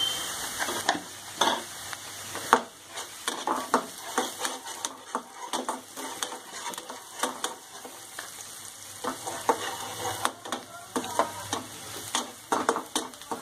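Chopped onions and turmeric sizzling in hot oil in a wok, stirred with a spatula that scrapes and taps against the pan at an irregular pace.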